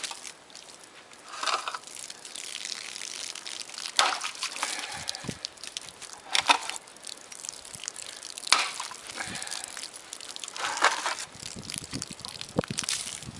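A stabbed tin can being handled and wrenched: six loud bursts of crinkling, scraping sheet metal, roughly every two seconds. Liquid splashes and drips from the pierced can in between.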